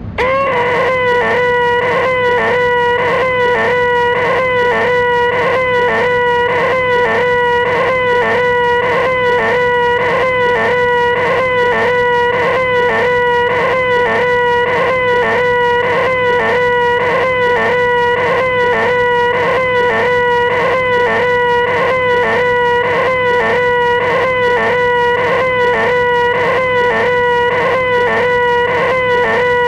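A man's loud, shrill, nasal 'eeeeh' yell held on one high pitch: the 'most annoying sound in the world'. It goes on without a break, with a small wobble repeating evenly a few times a second, as if it were looped.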